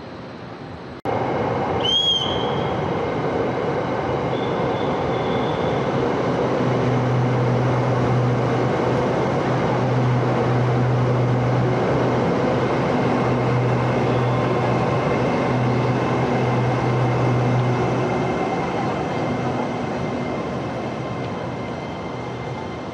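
SRT Red Line electric commuter train running at the station, starting abruptly about a second in, with a short high squeal near the start and a low electric hum that comes and goes in the middle, fading gradually toward the end.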